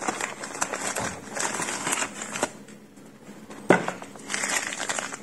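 Packaging crinkling and rustling with small clicks as the microphone is unpacked by hand, easing off for about a second midway, with one sharp knock about three and a half seconds in.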